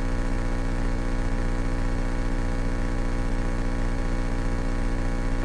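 1970 Cessna 172K's four-cylinder Lycoming engine idling steadily as a constant hum with an even pitch.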